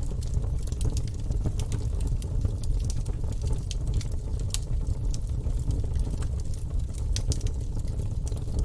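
Wood fire burning in a fireplace: logs crackling and popping with many irregular sharp snaps over a steady low rumble of the flames.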